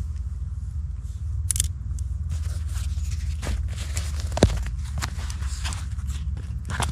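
Outdoor woodland ambience: a steady low rumble with scattered short rustles and light clicks, and one sharper click about four and a half seconds in.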